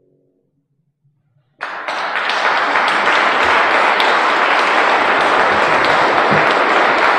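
A grand piano's last notes fade out in the first half second, then after a short silence audience applause breaks out suddenly about one and a half seconds in and goes on steadily and loudly.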